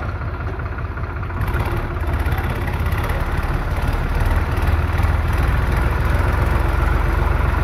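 A vehicle's engine running steadily with a low, rapidly pulsing rumble as it moves slowly through floodwater, with a wash of noise over it; it grows a little louder about a second and a half in.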